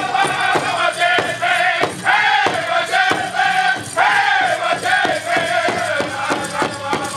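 Powwow drum group singing in unison over a steady, fast drumbeat of about three strokes a second, a contest song for a fancy dance.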